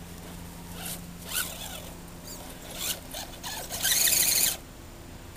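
Axial SCX10 RC crawler truck's electric motor and geared drivetrain whining in short throttle bursts as it crawls over roots and dirt; the longest and loudest burst comes about four seconds in.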